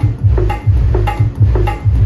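Loud rhythmic music through a band's sound system, with heavy bass beats and a sharp click on each, about four beats a second.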